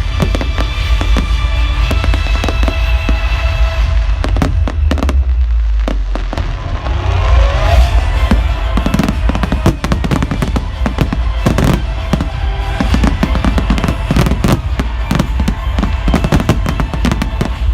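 Fireworks display: many rapid bangs and crackles over a heavy low rumble, with music playing alongside.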